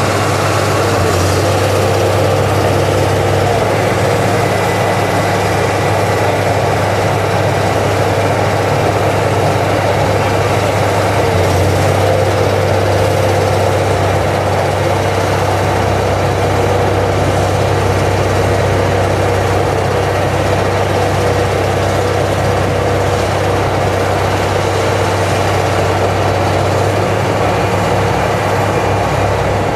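Harvestline mobile cable yarder's diesel engine running steadily and loudly, its pitch shifting slightly about a second in and again about eleven seconds in.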